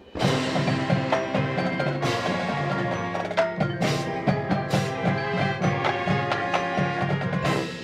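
Marching band playing loudly, entering suddenly just after the start: sustained chords over a driving low beat, with mallet percussion and several sharp crashes. The full sound drops away near the end.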